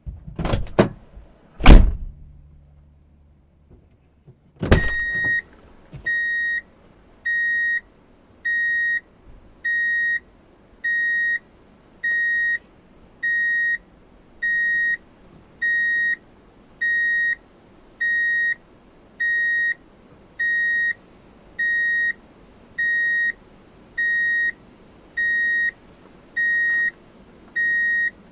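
Vehicle reverse-gear warning beeper: one steady high-pitched beep repeating about once every 1.2 seconds, starting about five seconds in. Before it, a few sharp knocks, the loudest just under two seconds in, and a click as the beeping begins.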